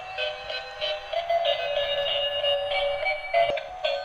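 Battery-powered transparent gear toy car playing its built-in electronic melody through a small, tinny speaker as it drives.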